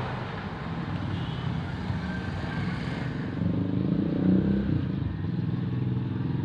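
Steady running of a motor vehicle engine, as from passing traffic, growing louder about three and a half seconds in.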